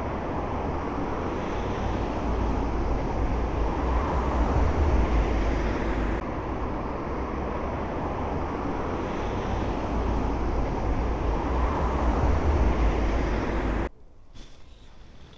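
Road traffic: cars driving past in a steady rumble that swells twice as vehicles go by. It drops away suddenly near the end to a much quieter street.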